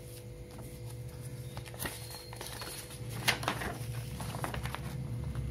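Paper and cardboard being handled: folded invoice sheets rustling and crinkling as they are pulled out of an opened box, with a few sharper crackles about two and three and a half seconds in. A steady low hum runs underneath.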